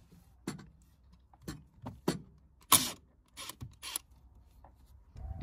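A run of sharp metallic clicks and knocks at irregular spacing, the loudest about two and a half seconds in, as a 13 mm socket on a cordless AEG drill is fitted onto the battery tray's bolts. A low rumble starts near the end.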